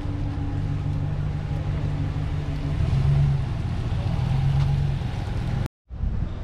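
An engine running steadily, a low hum that grows louder about three seconds in. It cuts out abruptly near the end and comes back as a different, windier noise.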